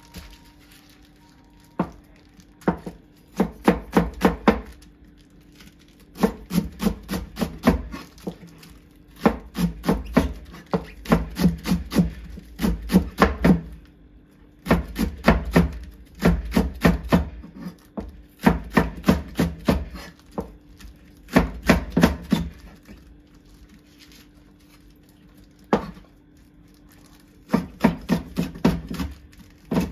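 Kitchen knife chopping food on a cutting board, in quick runs of about five or six strokes a second with pauses of a second or two between the runs.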